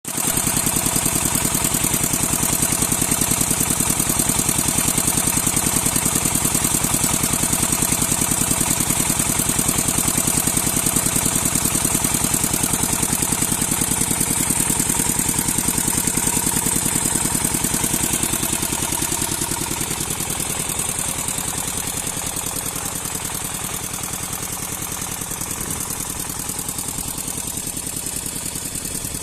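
Noisy engine running steadily with a rapid, even beat. It drops a little in level about two-thirds of the way through.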